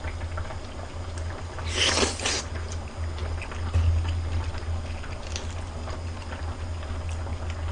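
Close-up eating sounds of a person chewing salmon sashimi, with a short sucking slurp about two seconds in and small mouth clicks, over a steady low hum.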